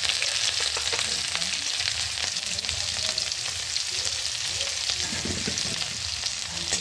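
Chopped garlic and green chillies sizzling in hot oil in a kadhai: a steady hiss with many small pops and crackles.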